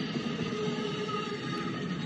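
LEGO trains running on plastic track: a steady electric-motor whine over the rumble of the wheels as a freight train passes.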